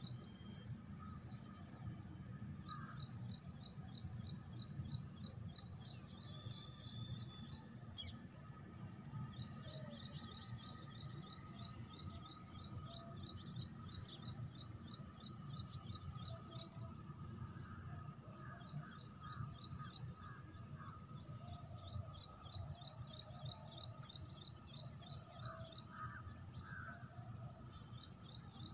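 Outdoor pond ambience: a high, fast run of chirps, about six a second, going on for several seconds at a time with short breaks, over a steady low rumble. A faint high pulse repeats about once a second, and a few softer, lower calls come and go.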